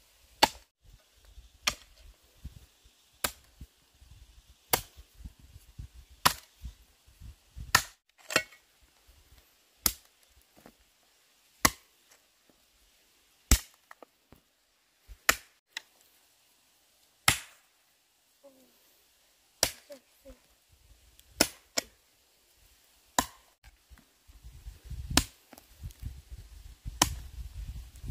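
A hand tool chopping in a slow, steady rhythm: single sharp strikes about every one and a half to two seconds. A low rumble rises under the strikes near the end.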